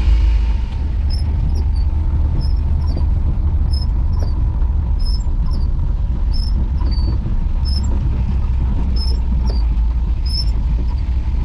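A steady low rumble with a short, high chirp repeating about once or twice a second, typical of a small animal calling.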